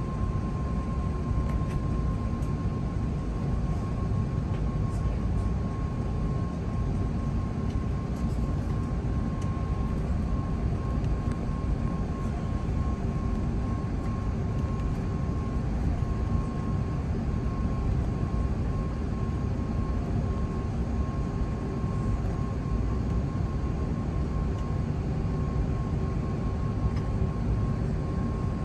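Steady cabin noise inside a British Airways Airbus A380-841 with its Rolls-Royce Trent 900 engines running: a constant low rumble with a thin whine held at one pitch.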